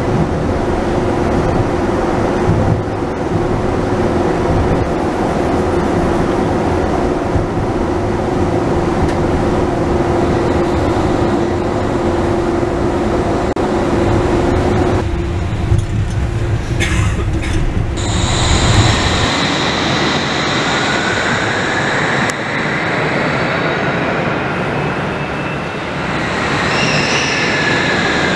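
Wuppertal Schwebebahn suspension railway car running on its overhead rail: a steady rumble with a held hum. About two-thirds through the sound changes to high whines and squeals that slide in pitch as a suspended car comes into the station.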